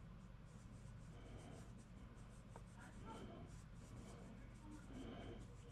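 Faint scratchy rubbing of a PanPastel sponge applicator on sugar paper in quick, short strokes, over a low steady hum.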